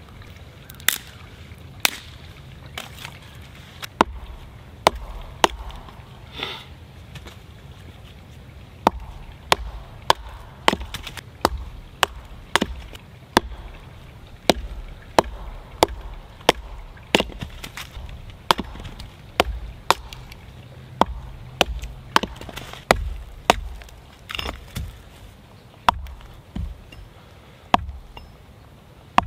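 A Prandi axe chopping small firewood into kindling on a log: a long run of sharp wooden knocks, sparse at first, then about one or two a second.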